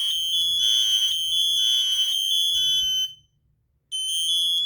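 Hardwired Kidde smoke alarms sounding their high-pitched beeping alarm during a test, the beeps overlapping. They fall silent for just under a second about three seconds in, then start again.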